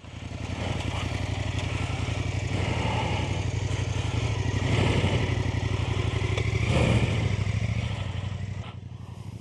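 KTM 890 Adventure R's parallel-twin engine running, low and steady, swelling slightly twice and dropping quieter near the end.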